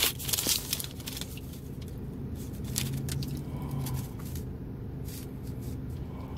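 Paper receipt crinkling and rustling as it is unfolded in the first half-second, then a steady low hum inside a car cabin, with a few faint paper rustles later on.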